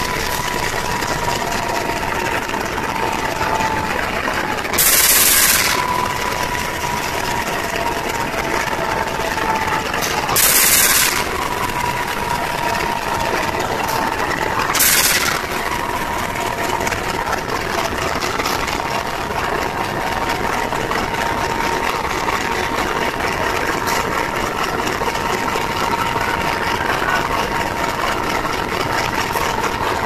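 CC204 diesel-electric locomotive engine idling steadily, with a constant high whine over the engine noise. Short loud bursts of hissing come about 5, 10 and 15 seconds in.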